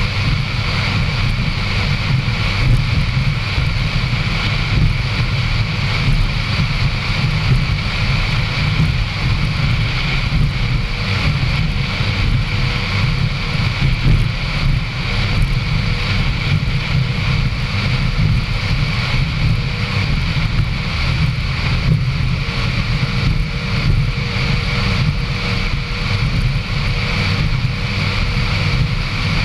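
Racing powerboat running at speed, heard from a camera mounted on its deck: a steady, loud engine drone mixed with wind buffeting the microphone and water rushing past the hull.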